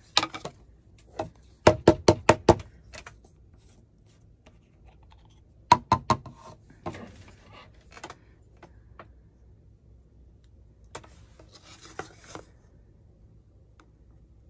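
Small paint supplies handled on a wooden worktable. A quick run of about six sharp knocks comes about two seconds in and three more around six seconds, then scattered light taps and a brief rustle near twelve seconds.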